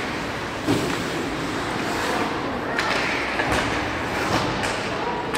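Ice hockey game sounds in a rink: a steady wash of skates and arena noise broken by about five sharp knocks of sticks and puck.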